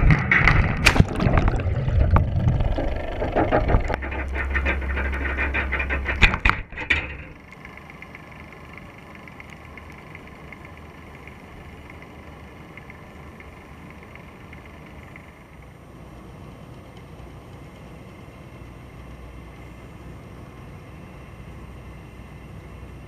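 Splashing and knocking as a wire crab trap carrying a camera in its waterproof housing goes into the water. About seven seconds in the sound drops suddenly to a muffled, steady underwater hiss with faint steady tones as the trap sinks.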